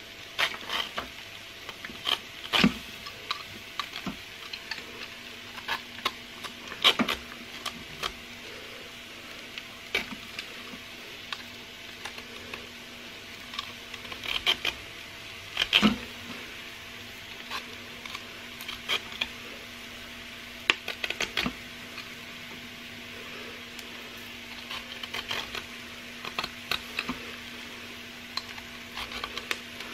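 Handheld corn stripper cutting kernels off ears of fresh corn, giving irregular scrapes and clicks as the kernels drop into the pot, over a faint steady hum.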